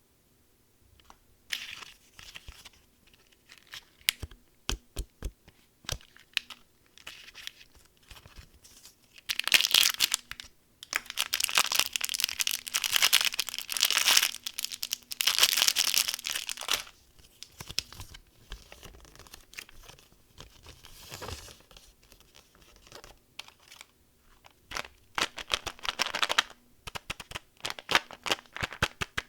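Candy packaging being crinkled and torn open, in irregular bursts of crackling with light clicks and taps, densest and loudest from about ten to seventeen seconds in.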